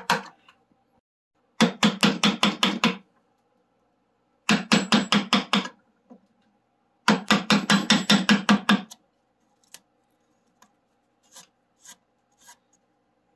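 Steel carving gouge being struck with quick hammer taps as it cuts chips out of the bowl of a wooden spoon blank: three runs of about six to nine rapid taps with a slight metallic ring, then a few scattered lighter taps near the end.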